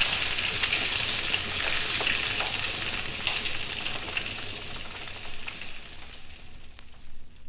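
Fire sound effect of flames crackling and hissing, with sharp pops, fading away toward the end.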